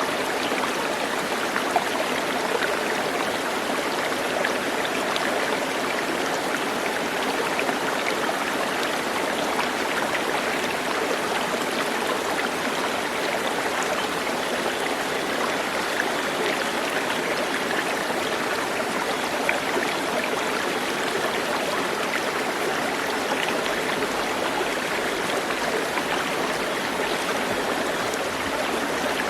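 Flowing water making a steady, even rush with no breaks.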